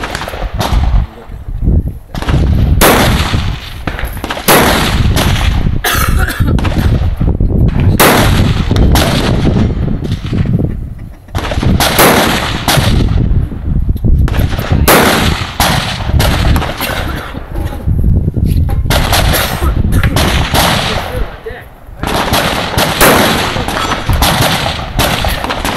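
Rifle shots fired again and again at irregular intervals, some in quick strings. Each is a sharp crack with a short echoing tail.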